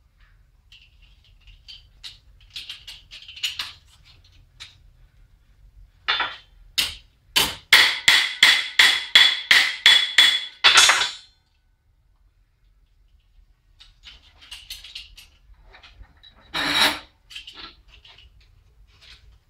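Auto body hammer striking a bent galvanized steel garage door hinge to flatten it: a quick run of about a dozen sharp metallic blows, roughly three a second, in the middle, with lighter clinks of the metal parts being handled before and after and one more hard blow near the end.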